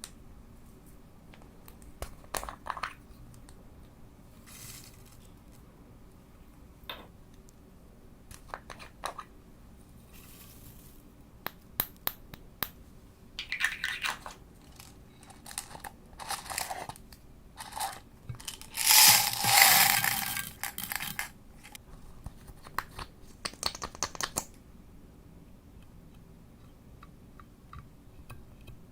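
Hands squishing and poking purple slime, giving scattered sharp clicks and crackles, with a longer, louder stretch of crackling about nineteen to twenty-one seconds in.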